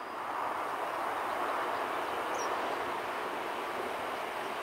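Steady rumbling noise of an electric train running on the rails, with no clear tones. A single short bird chirp comes about two and a half seconds in.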